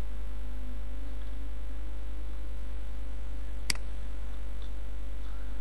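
Steady low electrical mains hum, with one sharp click about three and a half seconds in.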